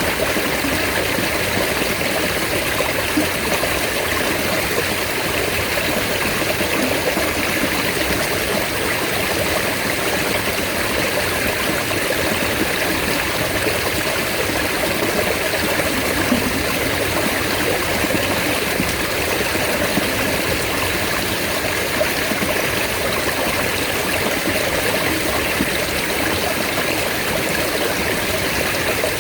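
Mountain stream water flowing steadily over rocks.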